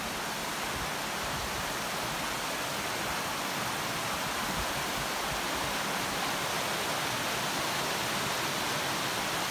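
Waterfall: steady rushing of falling water, growing a little louder.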